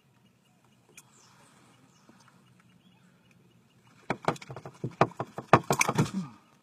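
A rapid run of sharp knocks and slaps, a dozen or so in about two seconds, starting about four seconds in after a faint low hum.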